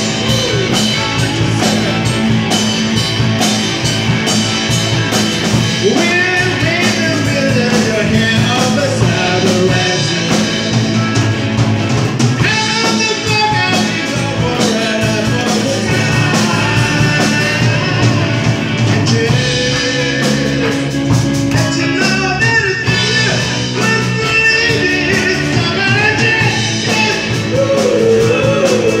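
Live rock band playing in a small club: electric guitars over a drum kit with a steady beat.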